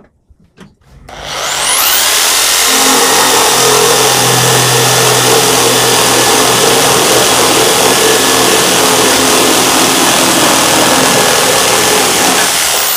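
Corded electric drill driving a reciprocating saw attachment, its blade cutting through 19 mm plywood. After a few light knocks, the motor whines up a little over a second in, runs steadily and loudly through the cut, and starts winding down near the end.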